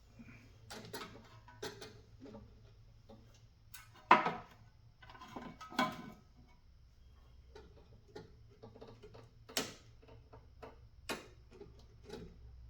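Irregular light clicks and knocks of hand work on a small snowblower engine's carburetor and fuel line, the sharpest about four and six seconds in and again near the end.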